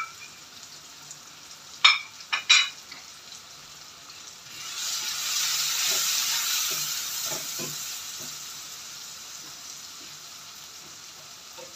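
Onion-tomato masala sizzling in hot oil in a nonstick wok as a wooden spatula stirs in the freshly added chilli powder and turmeric. A few sharp knocks come about two seconds in, then the sizzling swells from about four and a half seconds in and slowly dies away, with light scraping clicks through it.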